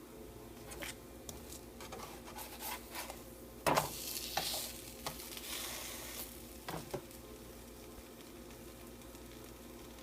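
Kitchen cooking sounds: scattered clicks of utensils, a loud clatter about four seconds in, then a couple of seconds of sizzling and two more knocks.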